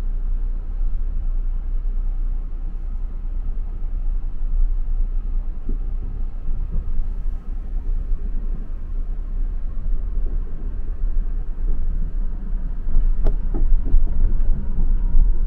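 Steady low rumble of an Amtrak passenger train rolling along, heard from inside the car, with a couple of light clicks and slightly louder near the end.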